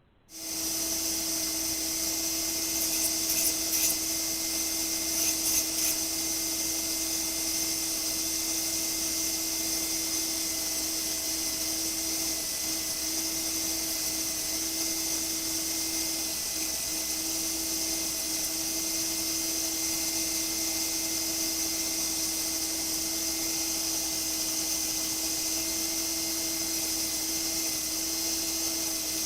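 Electric sander running steadily as it rounds over the corners of a wooden frame, a steady motor hum under a high hiss. There is louder rasping briefly around three and five seconds in, and the hum dips slightly now and then under load.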